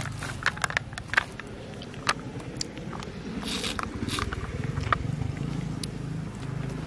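Handling noise: a sealed plastic drink cup clicking and tapping in the hand, with a short rustle of clothing, over a low steady rumble.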